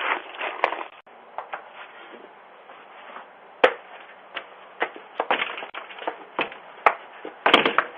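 Scattered sharp clicks and knocks, a dozen or so at uneven intervals and a quick cluster near the end, over a steady hiss, heard through a doorbell camera's narrow-band microphone.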